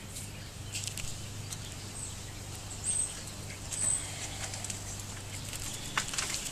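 Light rustling and scattered clicks from tomato leaves and pots being handled, over a faint steady low hum, with two short high chirps about three and four seconds in.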